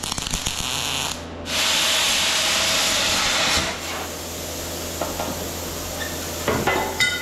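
Hand grinder run against steel on a welded truck bumper, a hissing, rasping grind that comes in cut-together stretches. The loudest stretch runs from about a second and a half in to past the middle, with a few clicks near the end.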